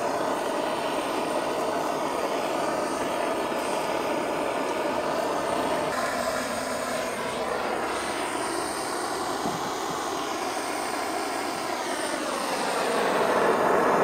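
Steady drone of an aircraft engine passing over, its pitch sliding a little and the sound growing louder near the end.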